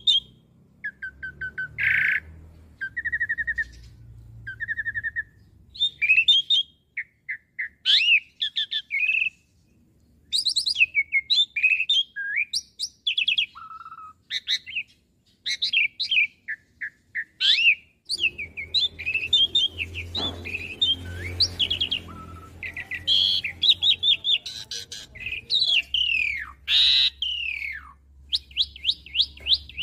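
Asian pied starling singing a long, varied song of whistles, chatters and buzzy trills. Near the end it breaks into a fast run of repeated rising notes, about four a second.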